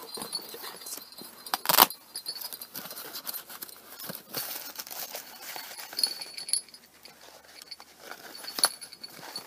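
Handling noise from small cosplay items and their box: rustling and light clicks with short metallic jingles now and then, and one sharp clack a little under two seconds in.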